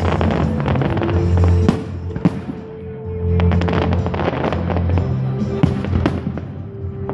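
Aerial fireworks bursting overhead: many sharp bangs and crackles in quick succession. Music with sustained low notes plays underneath.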